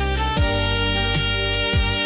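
Instrumental music from a worship song: sustained keyboard chords over a deep bass pulse.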